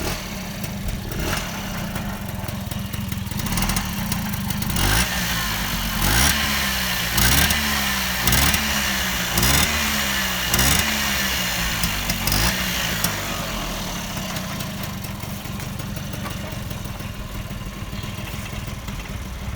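Piaggio moped's small two-stroke single-cylinder engine running on a test after being fitted. It idles, is blipped up and down in a string of short revs for about eight seconds, then settles back to idle.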